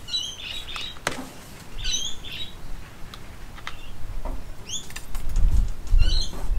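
Bird calling: short phrases of rising chirps, repeated every second or two. A few light clicks and a low rumble near the end, the loudest part, from hands working in the bonsai pot's soil.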